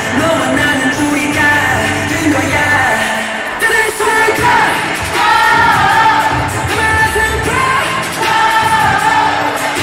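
K-pop song with singing, played loud.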